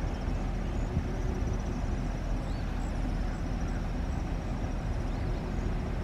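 Steady low rumble of a slowly moving car's engine and tyres, with two faint short chirps high above it.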